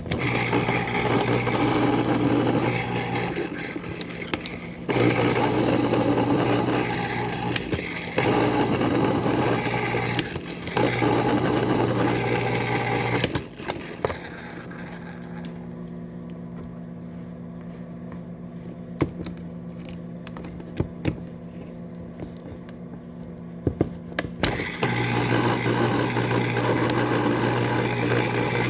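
A small electric motor running in stretches of a few seconds, switching off and on several times over a steady low hum. A quieter spell with a few clicks falls in the middle.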